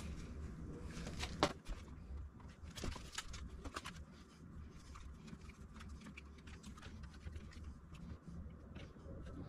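Faint, scattered clicks and taps of hand work as the electronic deadbolt's interior module is fitted and screwed onto its mounting plate.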